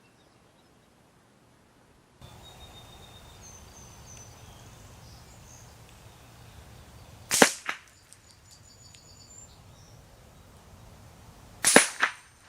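Mossberg 715T semi-automatic .22 LR rifle firing at steel targets: one sharp crack about seven seconds in, then another about four seconds later, followed closely by a second sharp report. Faint chirping can be heard in the background between the shots.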